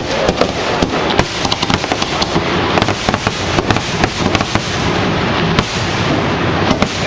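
Fireworks going off: a dense, irregular run of sharp bangs and crackling pops, many each second.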